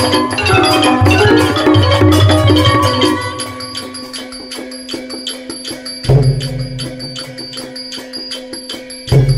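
Thai hard-mallet piphat ensemble (piphat mai khaeng) playing: mallet percussion over a held note and quick, even clicking strokes. About three seconds in, the full ensemble drops away, leaving the held note and the clicking, with a deep drum stroke twice.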